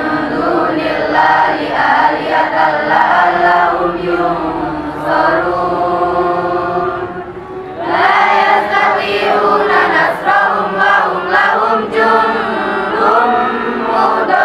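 A large group of students singing together in unison, holding long notes, with a short break between phrases about halfway through.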